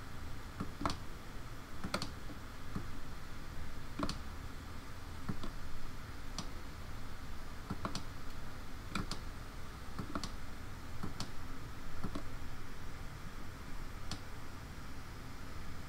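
Computer keyboard keys pressed one at a time, about a dozen separate clicks spaced unevenly, over a steady low background hum.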